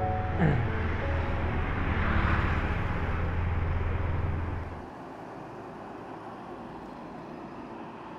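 Motorbike on the move: a steady low engine drone under wind and road noise. About five seconds in the drone drops away sharply, leaving a fainter steady hiss.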